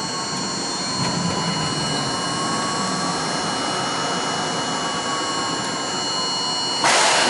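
R42 subway car rolling slowly into a platform and stopping, wheels and brakes rumbling with faint squeals that waver up and down over steady high tones. Near the end there is a short, loud burst of air hiss as the train halts.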